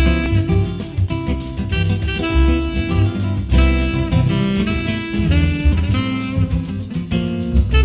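Instrumental jazz-style music with guitar to the fore over a steady bass, played as a sound-test sample.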